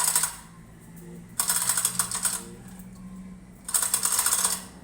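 Hand chain hoist clicking rapidly as its chain is hauled in short pulls, lifting an engine; each pull gives about a second of dense metallic rattle, three times.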